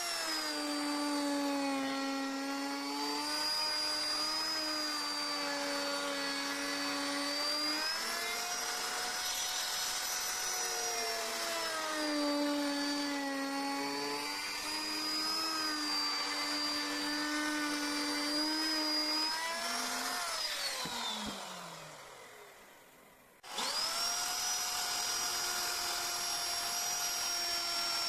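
High-speed electric rotary carving tool running on wood, its pitch dipping and rising as it is loaded. About 20 s in it is switched off and spins down with a falling whine, then it starts up again a few seconds later and runs on steadily.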